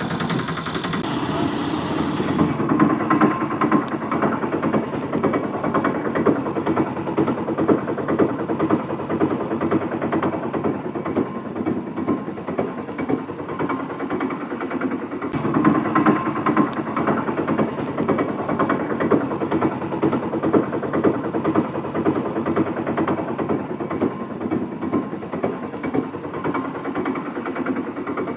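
A small motor running steadily with a rough, dense buzz; the sound changes a little about halfway through.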